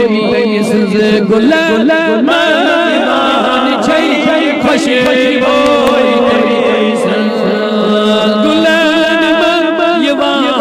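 A man's voice chanting a Kashmiri naat, a devotional poem in praise of the Prophet Muhammad, in long held melodic lines with quick wavering ornaments.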